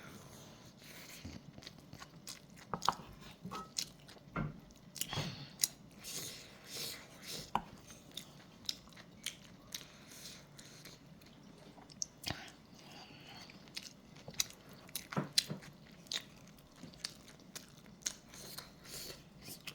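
A person chewing mouthfuls of kimchi fried rice, with irregular short clicks of eating throughout.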